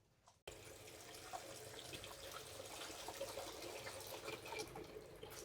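Water running and splashing, with small drips and ticks, starting abruptly about half a second in.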